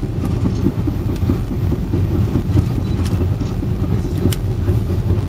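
Steady low rumble of a moving vehicle heard from inside, with a few faint ticks.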